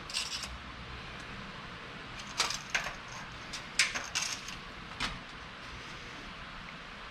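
A handful of short metallic clinks and rattles from hand work with small tools or parts, bunched between about two and five seconds in.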